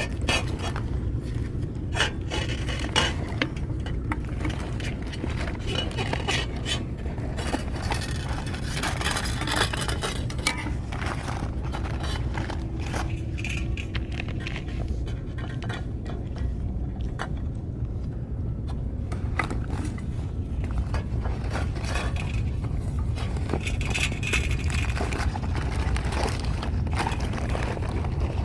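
Scattered clicks and scrapes of feeding dishes and food cans while stray cats are fed wet cat food, over a steady low rumble.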